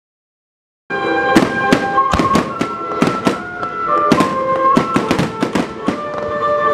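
Silent for about a second, then a fireworks display starts abruptly: aerial shells bursting in quick succession, about three bangs a second. Music with held notes plays underneath.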